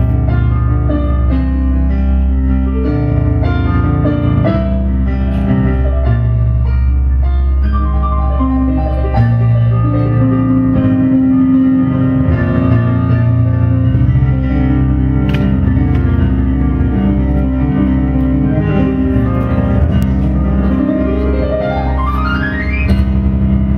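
Electronic keyboard music played live: sustained low bass notes under a busy, shifting melody. Near the end a single smooth sweep rises steadily in pitch.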